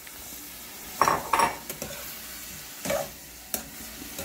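A metal spoon stirring and scraping chicken and vegetables in a caldero, with a few sharp clatters against the pot about a second in and near the end, over a steady low sizzle.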